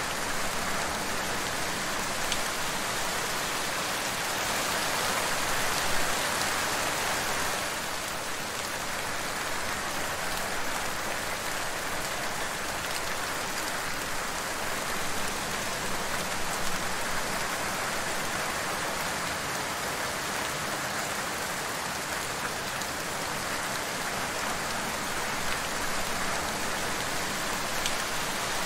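Steady rain falling: a dense, even hiss with a few individual drops standing out.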